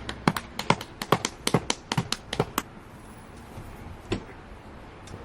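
A quick, irregular run of sharp taps, about fifteen in the first two and a half seconds, then a single tap about four seconds in.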